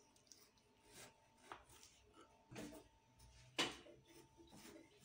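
Kitchen knife slicing a tomato into rings on a plastic cutting board: a few faint, irregular knocks as the blade goes through and taps the board, the loudest about three and a half seconds in.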